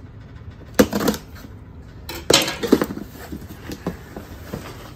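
Cardboard box being opened by hand: a few sharp knocks and scrapes of the lid and flaps about a second in, then a louder cluster of knocking and rustling cardboard around two and a half seconds in, with a few lighter ticks after.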